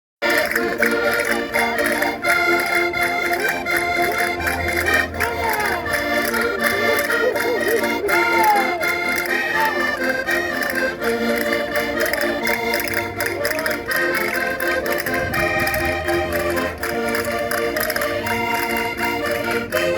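Concertinas playing a traditional folk tune for dancing, with held reed chords under the melody throughout.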